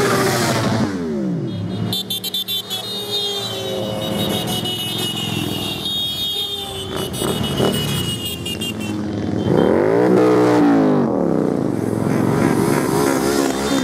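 A procession of motorcycles riding past one after another, engines running steadily. Single bikes rise and then fall in pitch as they pass close by, just after the start and again about ten seconds in, the loudest moments.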